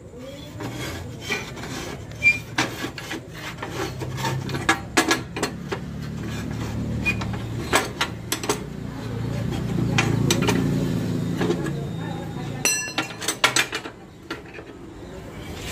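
Flat steel strip clinking and clanking against a hand scroll-bending jig as it is levered round into a scroll, with many sharp metal knocks and a quick rattle of clinks near the end.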